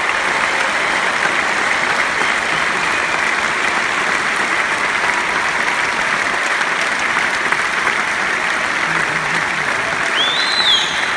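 Large arena crowd applauding and cheering steadily for a band member just introduced, with a short high whistle near the end.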